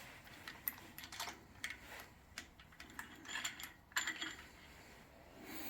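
Light, irregular metallic clicks and clinks of small steel engine parts being handled, a dozen or so scattered taps, a few with a brief ring.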